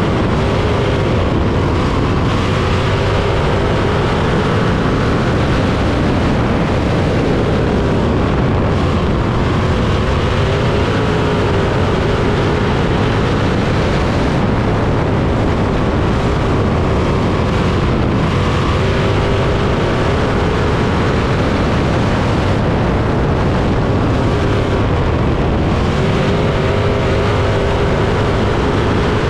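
305 winged sprint car's V8 engine running hard on a dirt oval, heard from the cockpit, its pitch rising and falling every few seconds as it laps.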